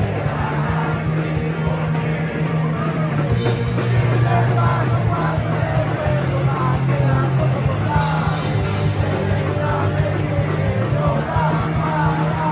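Live melodic hardcore punk band playing loud: distorted electric guitars, bass and drum kit heard straight from the stage amplifiers, with the vocal PA out so the singers are barely heard.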